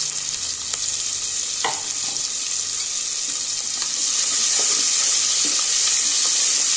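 Chopped onion sizzling in hot oil in a metal pressure cooker, stirred with a spatula that knocks against the pot a few times. The sizzle gets louder about four seconds in.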